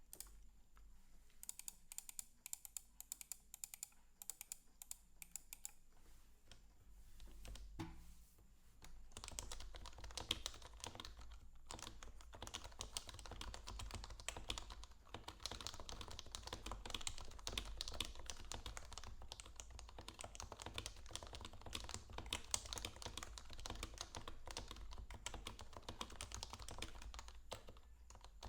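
Typing on an HHKB Pro Classic keyboard with Topre switches, lubed sliders and stabilizers, and PBT keycaps. Separate keystrokes come at first, then from about nine seconds in a fast, continuous stream of keystrokes.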